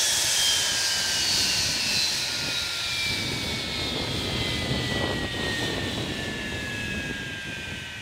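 Hawker Siddeley Nimrod's Rolls-Royce Spey turbofan engines spooling down after shutdown: a whine that sinks steadily in pitch over a rushing noise that fades as the engines slow.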